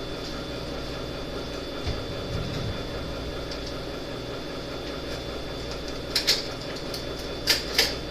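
Steady low room hum with a soft thud about two seconds in, then a few light, sharp clicks in the second half, mostly in two close pairs.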